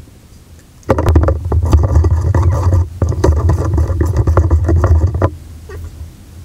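Slime being mixed hard in a plastic bowl on the table: a loud rumbling, scraping clatter with many small clicks that starts about a second in, breaks off briefly near the middle, and stops suddenly after about four seconds.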